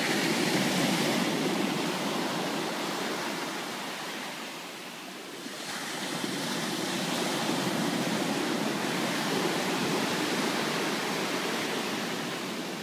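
Ocean surf breaking and washing up a sandy beach. The wash eases about four to five seconds in, then builds again as the next waves come in.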